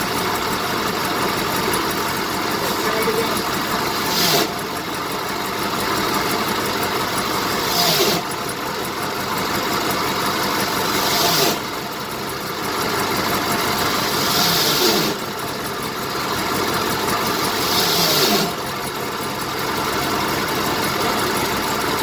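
1970 BMW 2002's four-cylinder engine idling while the clutch pedal is worked; five times, about every three and a half seconds, a grinding noise swells and then cuts off abruptly. The grinding comes only while the clutch pedal is being released, a clutch fault.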